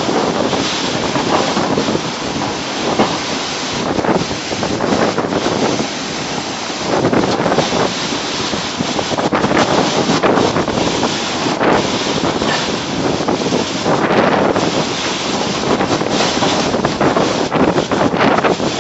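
Storm wind gusting hard across the microphone with rain falling, a loud rushing noise that swells and eases every second or two.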